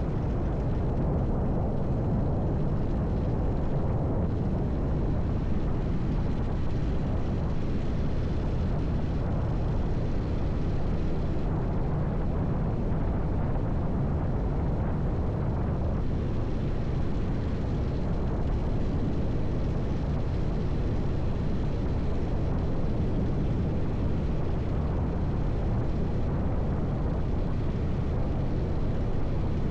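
Motorcycle engine running steadily at a cruise, with a constant low drone and the rush of wind and road noise as heard from on the bike.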